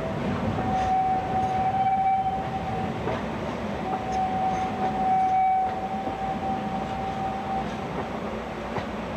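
Narrow-gauge passenger cars rolling slowly past on the rails, their wheels rumbling, with a thin, steady, high wheel squeal that sounds twice: for about two seconds near the start and for nearly four seconds from about the middle.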